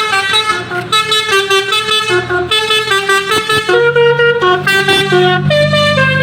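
Basuri telolet multi-tone horn on a car playing a quick tune of stepped notes, each held a fraction of a second, over a steady low hum.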